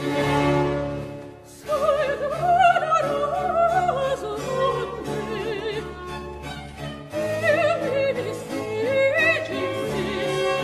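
An aria from an 18th-century oratorio: a string orchestral chord ends about a second in, and after a short pause a solo voice enters, singing with vibrato over the period-instrument strings.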